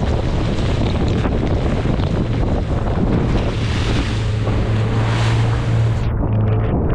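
Strong wind buffeting the microphone in heavy rain at sea, over the steady low hum of the boat's engine. The higher hiss drops away suddenly near the end.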